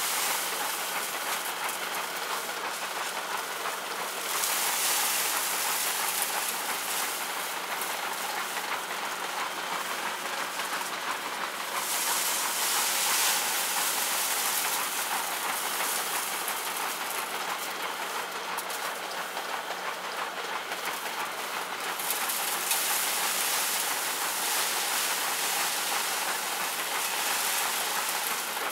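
Old drum threshing machine running and threshing hand-fed grain stalks: a steady, dense rushing noise that grows louder for a few seconds at a time, three times, as stalks are fed into the drum.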